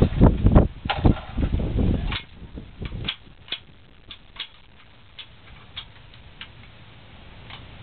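Rifles being unloaded: a string of sharp metallic clicks and snaps as magazines come off and cocking handles and bolts are worked on L98A2 rifles. Heavy handling thumps come first, and the clicks thin out toward the end.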